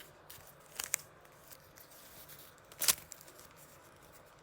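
3x3 Rubik's cube layers being turned by hand: short plastic scraping clicks, once about a second in and again, louder, near three seconds in.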